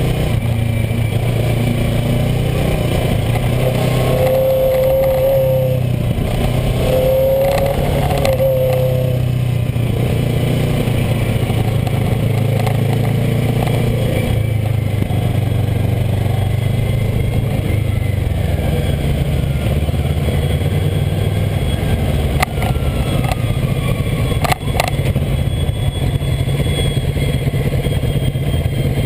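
Kawasaki ER-6n's parallel-twin engine running at steady low revs as the motorcycle is ridden, heard close up from a handlebar-mounted camera. Two sharp knocks come about two seconds apart near the end.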